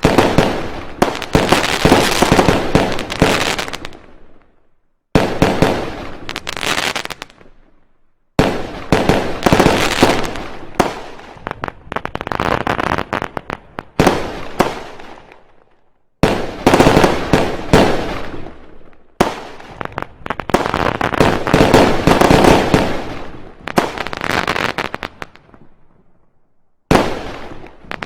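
Fireworks going off in dense, rapid volleys of bangs and crackles. The volleys come in several runs, each starting suddenly and dying away, with short silent gaps between them.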